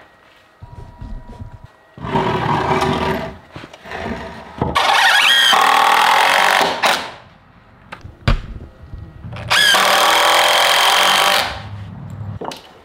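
Yellow DeWalt cordless impact driver driving screws into pressure-treated lumber in three long runs, each starting with a rising whine as the motor spins up. A single sharp knock sounds between the second and third runs.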